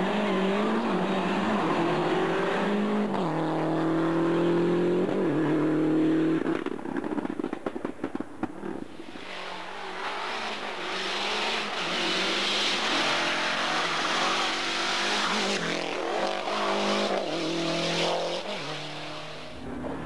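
Lancia Delta HF Integrale rally car's turbocharged four-cylinder engine revving hard through a cone slalom. Its pitch climbs and drops in steps with each gear change, turns rough and fluttery about a third of the way in, then climbs again as the car drives off up the road.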